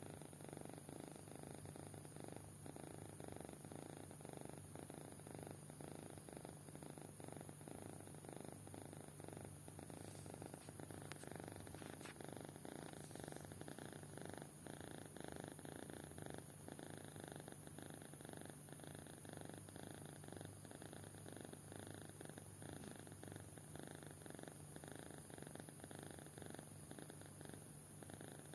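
Sleeping kitten snoring: a steady, fast, purr-like pulsing that carries on without a break.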